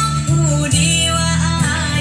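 A song with a singing voice and guitar over steady bass notes, played back through a car audio amplifier driving wooden speaker cabinets as a sound test of the system.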